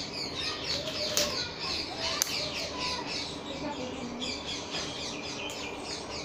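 Birds chirping in quick, repeated high chirps that go on throughout, with two sharp clicks about one and two seconds in.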